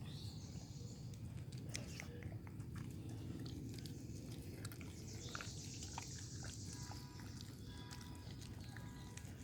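Dog chewing and gnawing a raw porterhouse steak held in the hand: scattered bites and crunches. A high buzzing trill joins for about two seconds near the middle.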